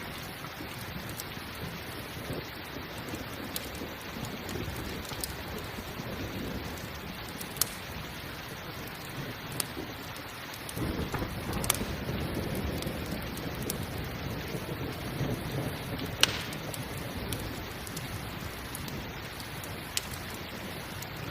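Steady rain with rolling thunder, the low rumble swelling about halfway through and lingering. A few sharp pops from a crackling campfire stand out over the rain.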